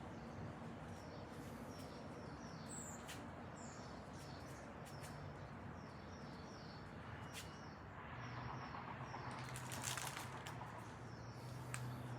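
Faint small-bird chirps repeating in the background. About eight seconds in, a rustling, most likely the jersey being handled, sets in along with a low steady hum.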